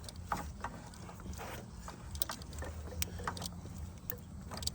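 Hands and tools working a stuck power steering hose off its fitting: scattered light clicks and knocks over a low steady hum.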